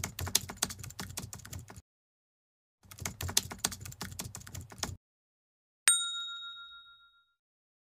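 Keyboard-typing sound effect in two runs of rapid key clicks with a pause between them. A single bright notification-bell ding follows about six seconds in and rings out for about a second and a half.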